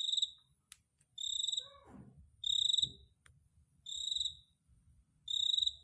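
A cricket hidden behind household appliances chirping: five short, shrill, pulsed chirps, evenly spaced about 1.3 seconds apart, with a couple of faint clicks between them.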